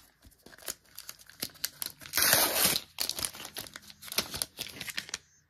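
Trading card pack wrapper crinkling as it is handled, torn open with one louder rip about two seconds in, then more crinkling and small clicks.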